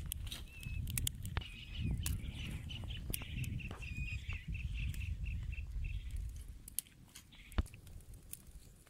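A bird calling in a run of short high chirps, a few a second, which stop about six seconds in. Under it, scattered sharp crackling clicks from the wood fire, with one louder click near the end, over a low rumble.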